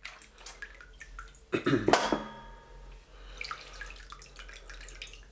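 Wet sloshing and dripping as a piece of veal is pulled out of a tray of salted soaking water, with a louder splashy stretch about one and a half seconds in.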